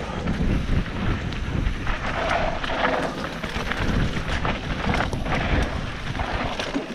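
Wind buffeting the microphone of a camera moving fast down a dirt trail, with a low rumble and rattling from the bumpy ride.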